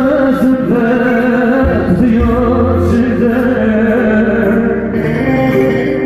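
Live Turkish folk music: a man sings an uzun hava, a free-rhythm long melody with a wavering, ornamented line, into a microphone. Under him a long-necked saz (bağlama) plays and an electronic keyboard holds sustained low notes that change a few times.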